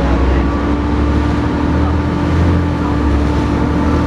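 Volvo B7TL double-decker bus's diesel engine running steadily under way, a deep drone with a steady whine over it: the vacuum-cleaner-like 'hoover' sound these buses are known for.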